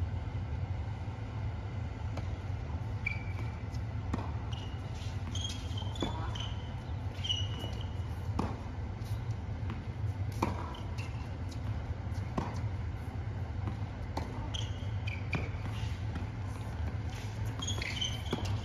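Tennis rally on a hard court: sharp hits of racket on ball about every two seconds, with short high squeaks in between. A steady low rumble runs underneath.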